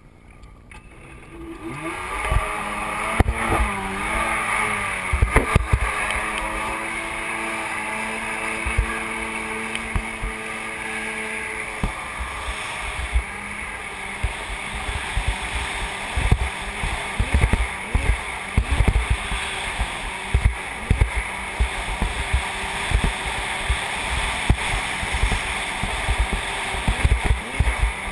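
Kawasaki JS550 stand-up jet ski's two-stroke twin engine idling and puttering at low speed, its pitch rising and falling with short throttle blips in the first several seconds. Irregular low thumps come in during the second half.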